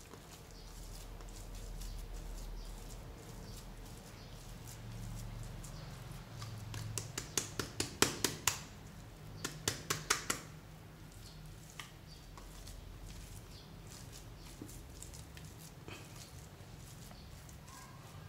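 Hands kneading and squeezing fluffy slime mixed with paint, giving soft squishing and two quick runs of sharp clicking pops about halfway through, over a low steady hum.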